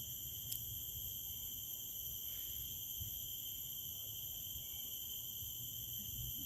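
Steady high-pitched trilling of crickets, unbroken, over a low rumble, with one short click about half a second in.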